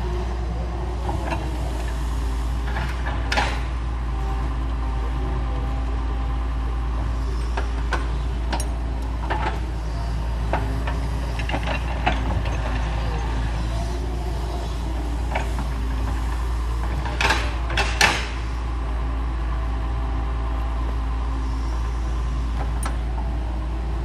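Doosan hydraulic excavator's diesel engine running steadily under load while it digs, with scattered sharp knocks and clanks from the working machine; the two loudest knocks come close together about three-quarters of the way through.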